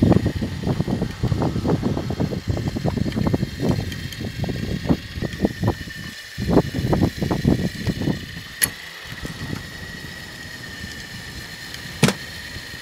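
Recovery machinery running as a submerged pickup truck is hauled up out of the lake water. Irregular low rumbling dies down about two thirds through, under a steady high whine, with two sharp clicks near the end.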